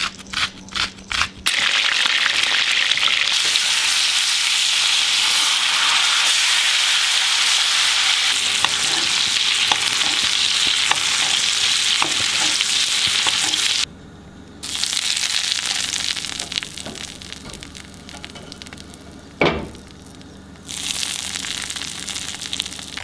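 Steak frying in hot oil and foaming butter with rosemary and garlic in a cast-iron skillet: a steady loud sizzle. It follows a few sharp ticks at the start, drops away abruptly about 14 seconds in, and comes back softer, with one sharp knock near 19 seconds.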